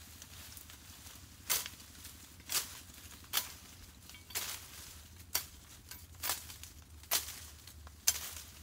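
A machete chopping through brush and saplings: eight sharp cuts at roughly one a second.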